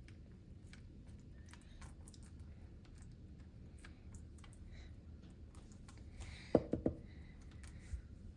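Faint scattered clicks and taps of kitchen items being handled, with two or three sharper knocks about six and a half seconds in.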